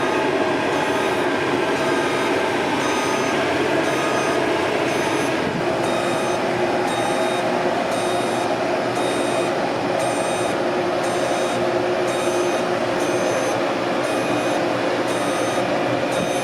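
A heavy vehicle's engine running steadily, with a backup alarm beeping about once a second while it reverses.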